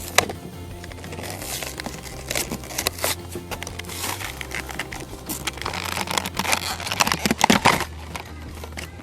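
Plastic toy packaging crinkling and clicking as a die-cast toy race car is handled and unpacked, the crackling busiest near the end.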